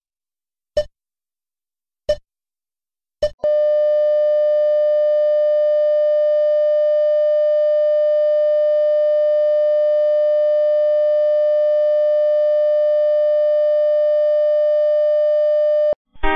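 Electronic beep sound effect: three short beeps about a second and a quarter apart, then one long steady beep at the same pitch lasting about twelve seconds, which cuts off suddenly.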